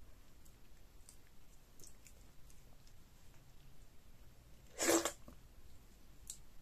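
Faint wet chewing and small mouth clicks. About five seconds in comes one short, loud slurp as a morsel of pounded yam trailing stringy ogbono-okra soup is sucked into the mouth.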